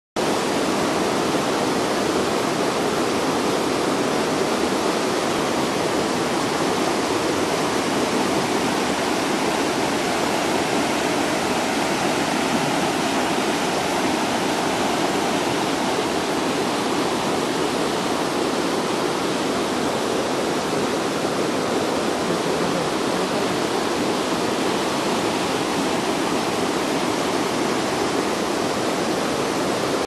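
Mountain stream rushing over boulders and small cascades: a steady, unbroken rush of water.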